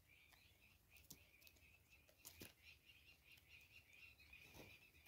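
Near silence: faint outdoor ambience with a steady high-pitched chirring and a few soft taps.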